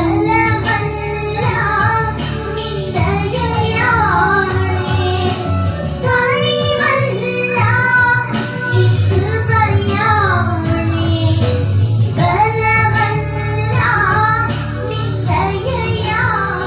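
Two young girls singing a Christian devotional song into microphones through a PA system, over instrumental backing with a steady low bass.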